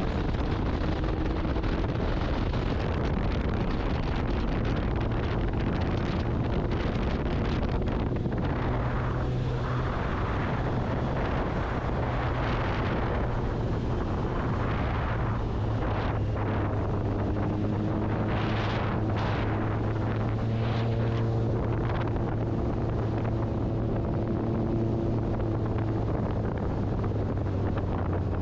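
Motorcycle engine running at a steady road speed with wind buffeting the microphone, the wind noise swelling and easing several times.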